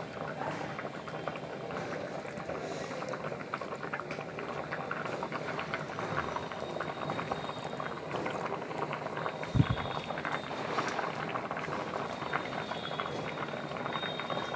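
Rice pudding (payesh) made with date-palm sap bubbling at a rolling boil in an aluminium pot: a dense, steady crackle of popping bubbles. One short low thump a little under ten seconds in.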